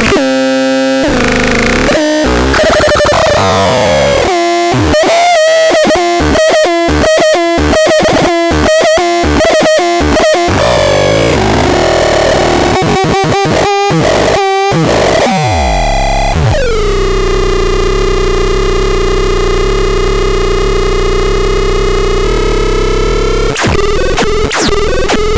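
Electronic synthesizer playing harsh, noisy tones: quick chopped notes in the first half, then pitch glides and a downward sweep into a long held, rich drone about two-thirds through, breaking into choppy sounds again near the end.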